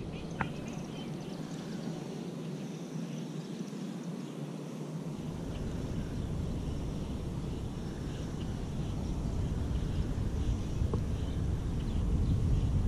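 Wind buffeting the camera's microphone outdoors: a steady rushing noise with a low rumble that comes in about five seconds in and grows slightly louder toward the end.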